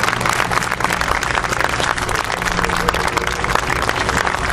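A small group of people applauding: a steady clatter of many hands clapping.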